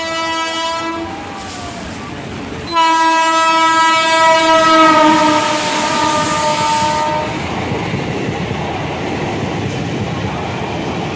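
Locomotive horn of a fast passenger train: one blast ends about a second in, then a louder, longer blast starts near three seconds and drops slightly in pitch as the locomotive passes. After it, the steady rumble of the coaches' wheels running past at speed.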